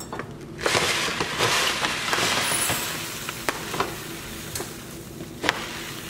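Dry rice grains being poured into a pot, a hissing rattle that is loudest for the first couple of seconds and then thins out, with a few sharp ticks of scattered grains.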